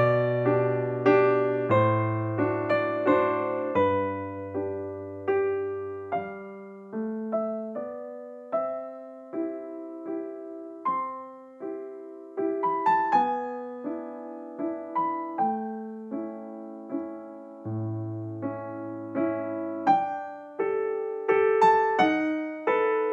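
Background music: slow, gentle solo piano, single notes and soft chords struck about once a second and left to ring out and fade.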